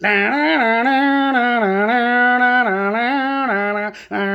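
A man humming a tune without words, one long melodic phrase with the pitch stepping up and down, broken by a short pause near the end before he carries on.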